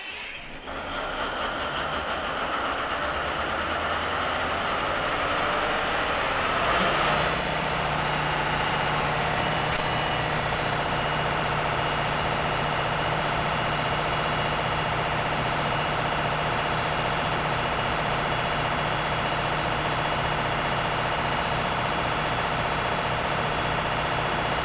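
Caterpillar 3516 V16 diesel engine of a Cat XQ2000 generator set starting from cold: the sound comes in about half a second in and builds over several seconds, then the engine runs at a steady speed with a constant low hum.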